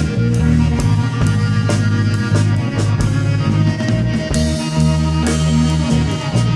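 Rock music with drum kit and guitar, played to a steady beat.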